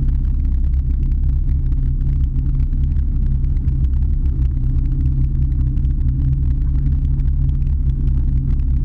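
Bowrider boat's V8 engine running steadily at low speed, a constant low rumble.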